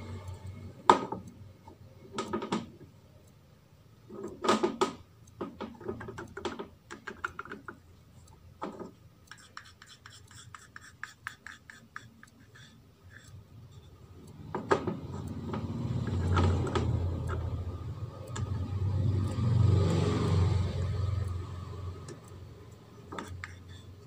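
A plastic spoon scraping and stirring a thick glue-and-acrylic-paint mixture inside a plastic tub. It starts with a few sharp knocks and scattered clicks, then a run of fast light ticks. From about the middle, a longer, louder stretch of rubbing and scraping follows.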